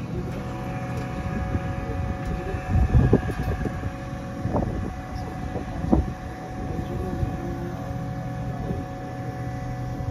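Caterpillar hydraulic excavator running steadily, its engine rumbling under a steady whine. A few short low thumps come near the middle.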